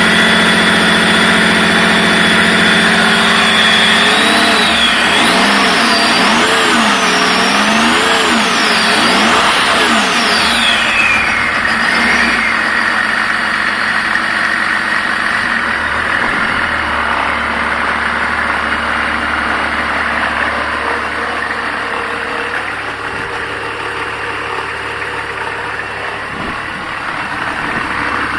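BMW M51 2.5-litre straight-six turbo-diesel running on a test stand. It is revved up and down several times, then drops back to a steady idle about a third of the way in.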